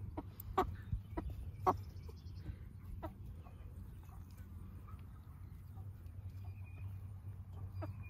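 A mixed flock of chickens, roosters and hens, clucking quietly. A few short, sharp sounds come in the first three seconds over a steady low hum.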